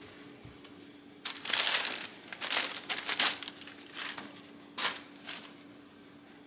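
White tissue paper rustling and crinkling in a series of bursts as it is handled and folded back in a gift box. The rustling starts about a second in and dies away about a second before the end.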